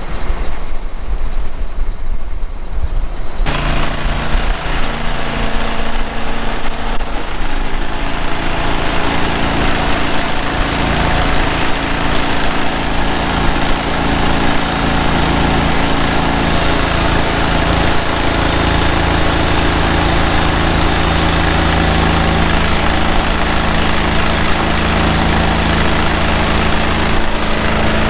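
A low rumble for the first few seconds, then a loud engine of heavy farm machinery cuts in suddenly and runs steadily at idle.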